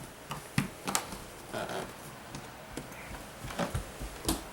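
Handling noise: scattered light taps and knocks, with a brief rustle about one and a half seconds in.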